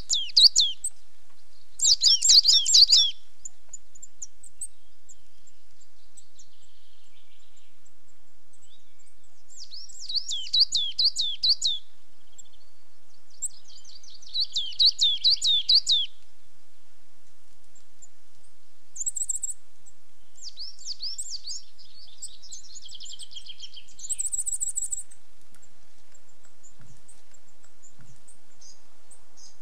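Coal tit singing: short phrases of quickly repeated high notes that each fall in pitch, in bursts of a second or two with pauses of several seconds between them. The phrases in the second half are fainter and higher.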